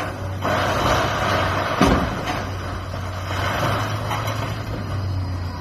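Heavy earthmoving machine's diesel engine running steadily under load during demolition work, with one sharp thud about two seconds in.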